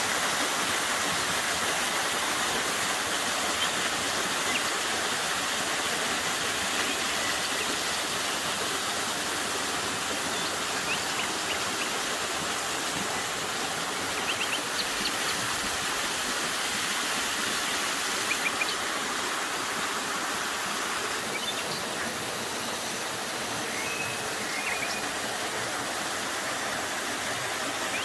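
Steady rushing of a forest stream and small waterfall, with a few faint short high chirps here and there.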